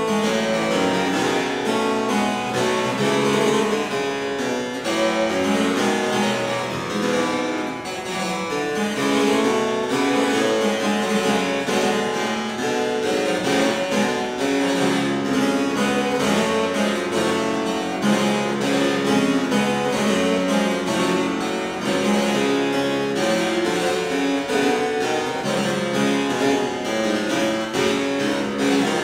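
Solo harpsichord playing a French Baroque allemande, with a dense, unbroken flow of plucked notes at an even level.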